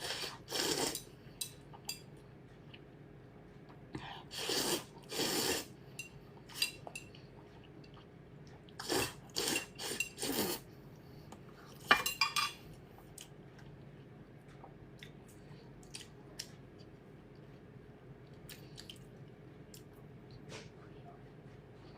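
Eating with cutlery and dishes: clinks and ticks of utensils on a bowl or plate, with clusters of short noisy eating sounds about a second in, around five seconds, nine to ten seconds and twelve seconds, the sharpest clink near twelve seconds.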